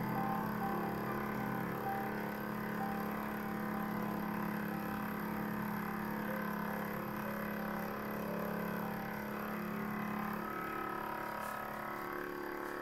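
Small milling machine running, its end mill cutting the edge of a metal workpiece on a rotary table: a steady motor and spindle tone with a fine, rapid cutting chatter over it.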